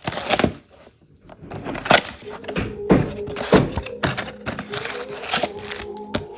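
A cardboard trading-card blaster box and its wrapping being torn open by hand: a quick series of sharp rips, crinkles and knocks.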